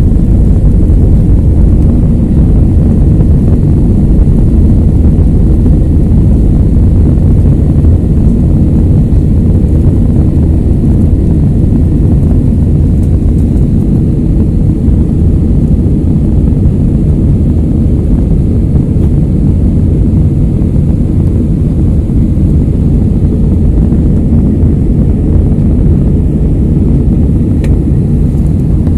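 Jet airliner cabin noise during the climb just after takeoff: the engines at climb thrust and the rushing air give a loud, steady low rumble heard from a window seat over the wing.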